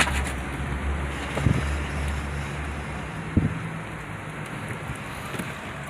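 Car driving, heard from inside the cabin: a steady low rumble of engine and tyres, with two brief knocks, about one and a half and three and a half seconds in. The low rumble eases off after the second knock.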